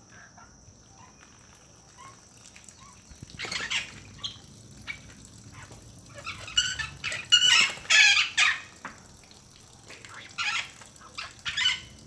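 Parrot giving short, harsh squawks: one about a third of the way in, a tight run of them in the middle, and a couple more near the end.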